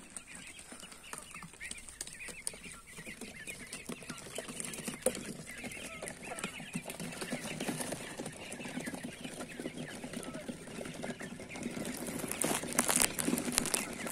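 A flock of 41-day-old quail calling with many short chirps and peeps, over rustling in wood-shaving litter. Sharp clicks and rustles grow denser near the end.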